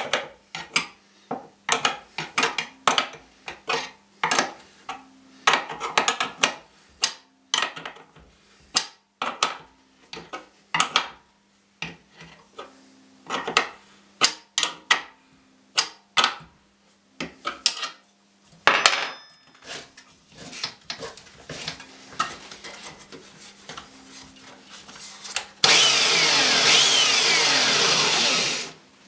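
Handheld belt sander being worked into a wooden stand, a long run of short wooden knocks and scrapes. About 26 seconds in the sander is switched on and runs loud and steady for about three seconds, then stops suddenly.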